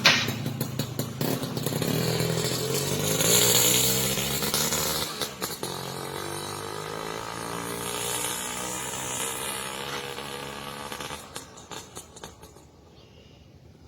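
Suzuki Crystal two-stroke motorcycle running through a hollowed-out stock muffler, revving with a crisp, rattly exhaust note. The sound is loudest in the first few seconds, then fades and dies away near the end.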